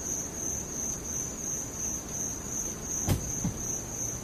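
Crickets chirping in a steady, evenly pulsing high trill, with a single sharp knock about three seconds in.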